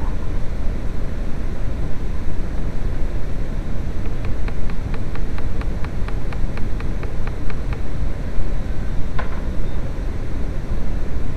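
Small electric welder's arc crackling and hissing steadily while welding, with a quick run of evenly spaced ticks, about five a second, in the middle and a single sharper crack near the end.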